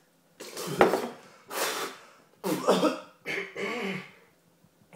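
A man coughing in four bouts, the first and loudest about a second in, after swallowing a mixture of chilli powder, smoked paprika, spice blend and vinegar.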